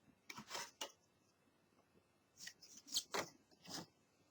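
Quiet rustling and tapping of product packaging being handled by hand, in two short clusters: one within the first second and another from about two and a half to four seconds in.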